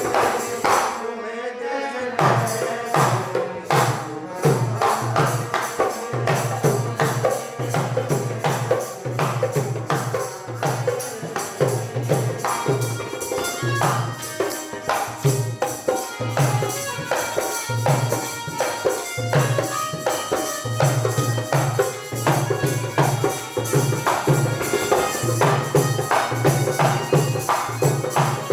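Live Hindi film-song accompaniment: dholak drum beating a steady rhythm under sustained harmonium tones, with a short break in the drumming about a second in.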